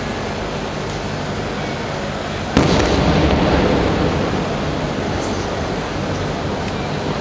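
A single loud firework bang about two and a half seconds in, its rumble dying away over the next couple of seconds, over a steady background din.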